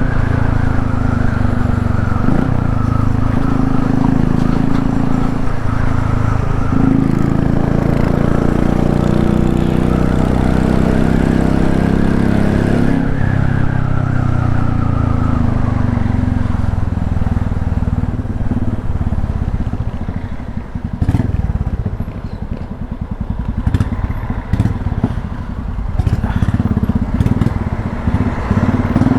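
Royal Enfield Classic 350's single-cylinder engine running through an aftermarket sport exhaust tip while the bike is ridden, a deep, steady exhaust note. In the last third the note drops and grows quieter for several seconds, then picks up again near the end.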